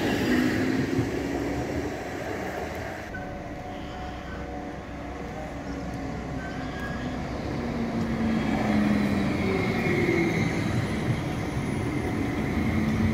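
Midland Metro CAF Urbos 3 electric trams, heard over a rumble of steel wheels on rail. One tram moves off and fades, and a few seconds later the next tram approaches and runs close by, growing louder. The trams' electric drives give a humming whine in a few shifting tones.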